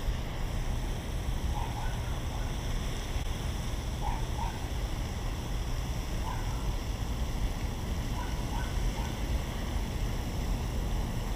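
Steady wind noise on the microphone, a low rumble with an even hiss, with a few faint short chirps scattered through it.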